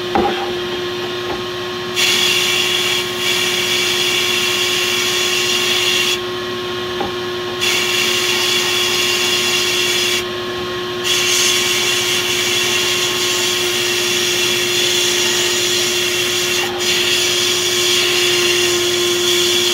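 Abrasive blast cabinet in use: the blast gun's loud hiss of air and grit comes on about two seconds in and stops twice briefly. Under it runs a steady hum with a single tone.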